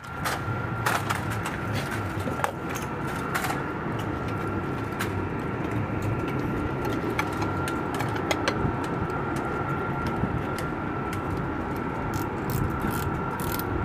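Steady machinery drone with a thin, steady high whine over it, broken by scattered small metallic clicks and taps of a screwdriver working a screw on an aircraft pod's metal panel.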